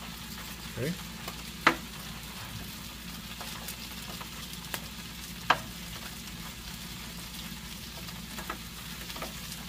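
Cheddar-stuffed brats sizzling steadily on a Blackstone E-Series electric griddle, with sharp clicks of tongs against the griddle top as the split sausages are turned. The two loudest clicks come about two seconds in and about five and a half seconds in.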